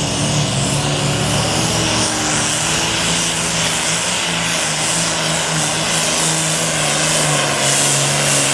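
Turbocharged diesel Super Farm pulling tractor engine running hard at high revs, a loud steady drone holding one pitch.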